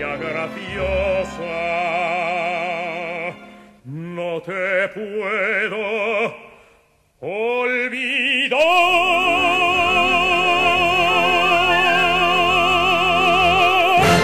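Operatic baritone with orchestra singing the closing phrases of a zarzuela romanza, rising into a long held high note with wide vibrato over the last six seconds or so, which stops sharply at the end.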